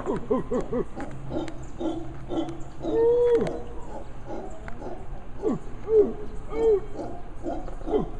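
Mantled howler monkey calling: a run of short, falling calls several a second, broken by a longer arched howl about three seconds in and two more near the end.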